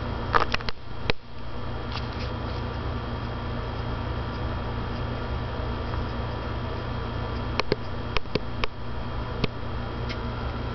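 Steady low hum with faint steady high tones above it, and a few short soft clicks: a cluster in the first second and another about three-quarters of the way through.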